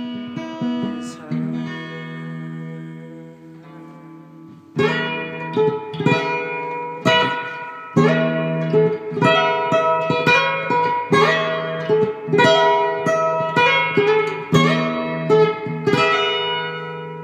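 Ovation acoustic guitar played solo, with no singing, on E major pentatonic chords. A chord is left ringing and fading, then about five seconds in a rhythmic pattern of picked and strummed chords begins, one or two a second, and it fades away near the end.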